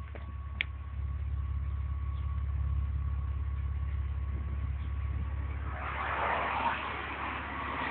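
Exhaust of an Opel Vectra OPC's turbocharged 2.8-litre V6 running at idle, recorded right at the tailpipe: a steady low rumble. A rushing hiss joins in during the last two seconds.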